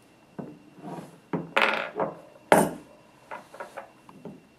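Metal end caps of a three-piece ball valve being pulled off the center body and set down on a wooden tabletop: a string of clinks and knocks, the loudest about two and a half seconds in, then a few lighter clicks.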